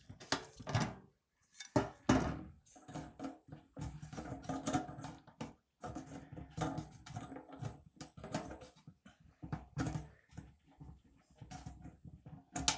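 Blue plastic fuel-tank cap on a petrol generator being unscrewed and lifted off. A string of irregular clicks, scrapes and knocks comes from the cap and from hands working on the metal tank and filler neck.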